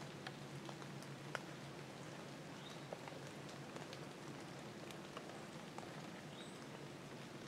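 Quiet outdoor ambience: faint irregular ticks and taps scattered through, a couple of faint short high chirps, and a faint steady low hum underneath.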